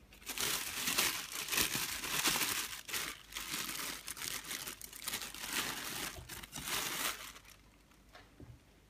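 Plastic bread bag crinkling and rustling as it is handled and opened and a slice of bread is pulled out. The crinkling eases off about seven and a half seconds in, leaving a few soft clicks.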